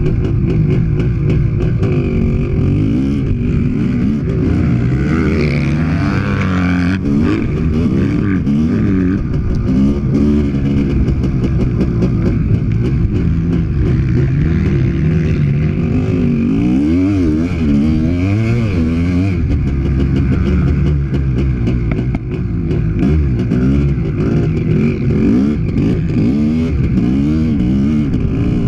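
Honda CR500's 491 cc single-cylinder two-stroke engine under hard riding, revving up and falling off over and over as the rider accelerates and shuts off, its pitch repeatedly rising and falling.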